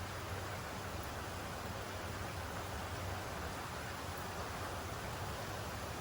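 Steady rainfall: an even, unbroken hiss with a low steady rumble underneath.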